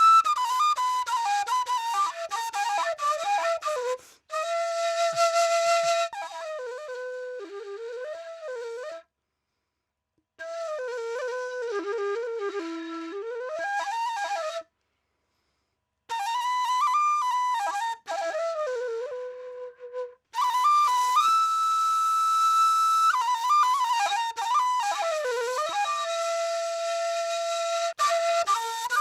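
Washint, the Ethiopian end-blown flute, playing a solo melody of quick ornamental turns and held notes, with audible breath. It stops twice for a second or so, partway through.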